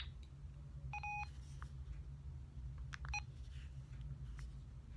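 Old candy-bar mobile phone beeping as its buttons are pressed: one beep about a second in and a shorter one about three seconds in, with faint key clicks over a low steady hum.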